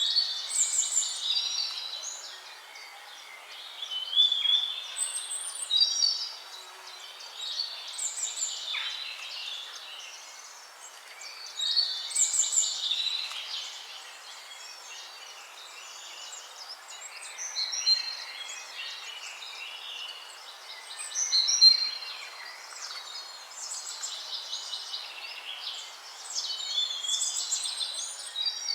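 Several songbirds singing together: overlapping chirps, trills and whistled phrases that swell every few seconds over a faint steady hiss.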